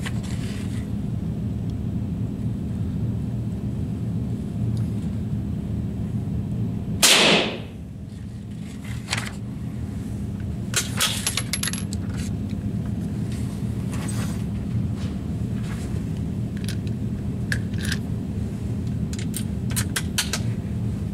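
A single rifle shot about seven seconds in, much the loudest sound, over a steady low hum. Lighter clicks follow every second or two after it.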